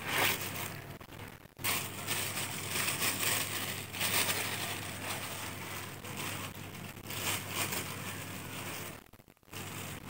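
Cardboard box and thin plastic wrapper crinkling and rustling as mosquito coils are unpacked by hand, broken by a short pause about a second and a half in and another near the end.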